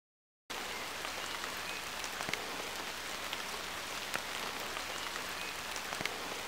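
Outdoor field ambience, a steady hiss of light rain with scattered small drop ticks on grass and leaves, starting abruptly about half a second in after silence.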